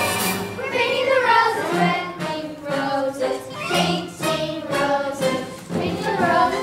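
Children singing together in a stage-musical number.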